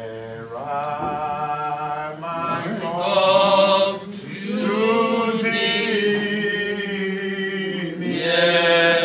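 A man singing a slow unaccompanied hymn in long held notes that bend in pitch.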